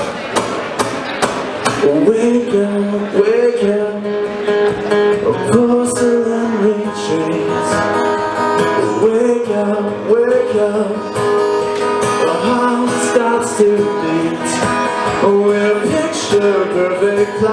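Acoustic guitar strummed steadily while a man sings a slow melody over it: a live solo acoustic song.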